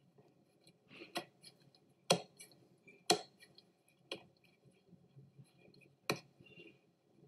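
Hands shaping risen naan dough into balls over a glass mixing bowl: about five sharp, short clicks and taps, spread out at roughly one-second gaps, with soft handling noise in between.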